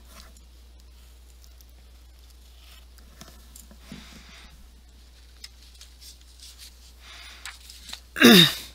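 Felt-tip marker scratching faintly on paper as an answer is circled, over a steady low hum. Near the end, a short loud sound that falls in pitch.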